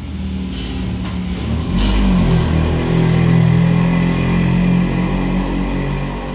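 A motor vehicle's engine running nearby, swelling louder for a few seconds in the middle, with two short clinks a little over a second in.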